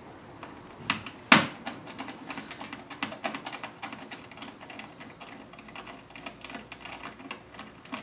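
Two sharp knocks about a second in, then a long run of small, quick, irregular clicks: a screwdriver working screws out of a laptop's chassis and motherboard.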